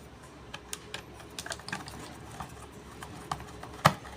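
Light, irregular clicks and taps of small plastic and metal hair-trimmer parts being handled and fitted together by hand, with one sharper click near the end.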